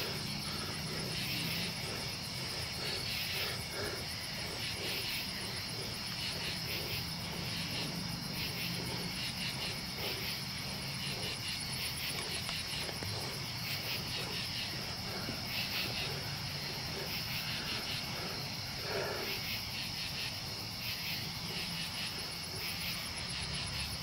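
Night chorus of crickets: a steady high-pitched trill with rhythmic chirping over it.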